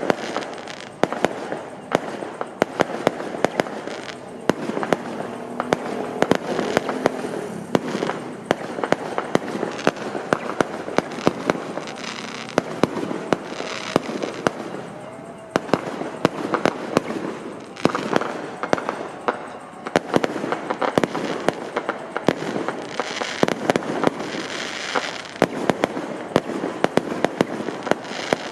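Fireworks and firecrackers going off in a dense, continuous barrage of sharp bangs and cracks, many a second, over a steady background haze.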